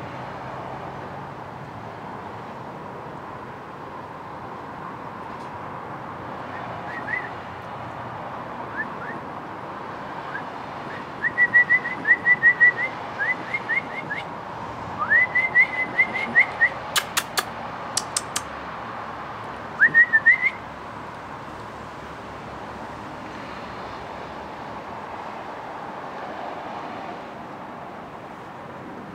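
A person whistling short, rising chirp-like notes in several quick runs to attract a perched hummingbird, with a couple of sharp clicks in the middle, over a steady background hum.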